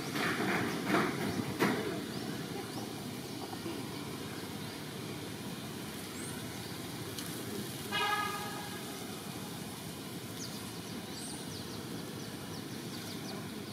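Outdoor ambience: a steady low rumble of distant traffic, with a short horn toot about eight seconds in and a few faint high chirps.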